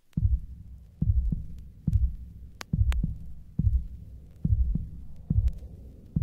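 Electronic kick drum pulsing alone in the intro of a 1990s techno record, a deep thump just under a second apart with nothing else playing.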